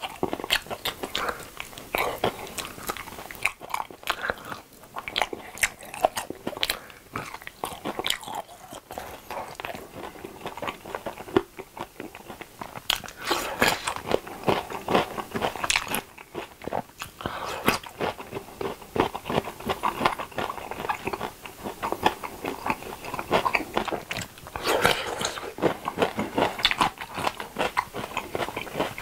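Close-miked chewing and biting of seasoned fried chicken drumsticks and cubed pickled radish: a continuous run of wet chews, smacks and crunchy bites, with short lulls between mouthfuls.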